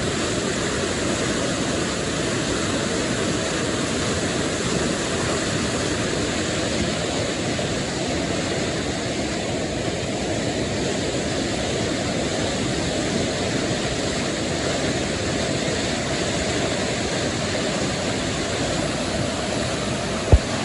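Flooded creek water rushing steadily, with one sharp click near the end.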